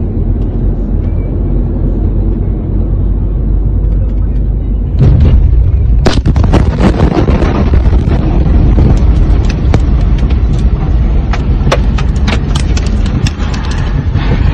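Inside a car, a steady low road rumble, then about five seconds in the blast wave of a huge explosion hits: a sudden very loud boom that runs on as heavy rumbling with many sharp cracks and rattles while the car and phone are shaken.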